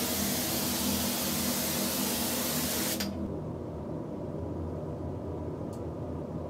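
Spray gun hissing steadily as it sprays activator onto the transfer film floating in a hydro-dipping tank, the step that softens the film's ink before the part is dipped. The hiss cuts off abruptly about three seconds in, leaving a low steady hum.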